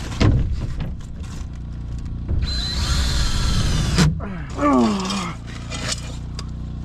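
Cordless drill driving a screw up through a metal bracket into a wooden floor beam. It runs steadily with a thin high whine for about a second and a half and stops abruptly. A brief sliding vocal sound follows.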